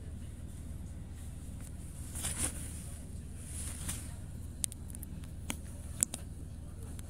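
Tram running along the track, heard from inside the car: a steady low running rumble with a hiss that swells briefly a couple of times, and a few sharp clicks in the second half.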